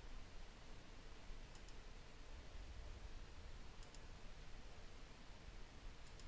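Faint computer mouse button clicks, three quick pairs about two seconds apart, over a steady low hiss.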